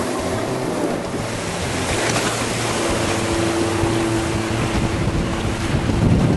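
Motorboat running on the water, with rushing water and wind buffeting the microphone; a steady engine hum stands out through the middle.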